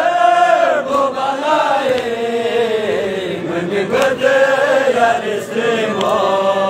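Men chanting a Balti noha, a Shia mourning elegy, together in a slow, drawn-out melody. A few sharp slaps of hands struck on chests (matam) cut through the singing.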